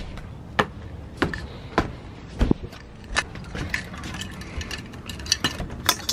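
Footsteps in flip-flops, a sharp slap about every 0.6 s, one with a dull thud on wooden steps. Near the end a bunch of keys jingles and clicks as a key goes into a sliding-door lock.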